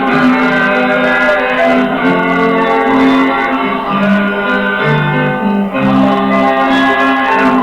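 Music: a song from a musical-comedy record, with voices singing long held notes over guitar accompaniment.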